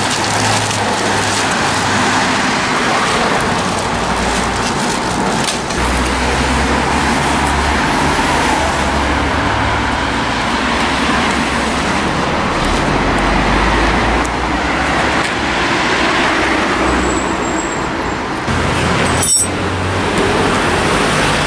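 City street traffic: cars and other motor vehicles passing on the road, a continuous rumble whose low end rises and falls as vehicles go by.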